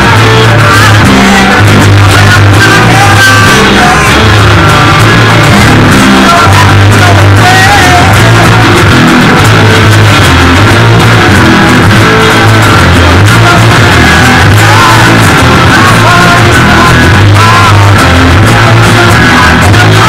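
A rock band playing live in a rehearsal room: electric and acoustic guitars over drums. The recording is very loud and stays near full scale throughout.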